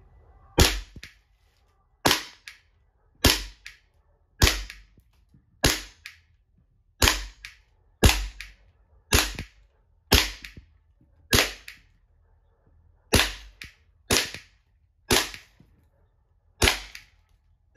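Airsoft Glock pistol firing single shots at a target, about one a second, some fifteen shots in all. Each sharp crack is followed closely by a lighter tick.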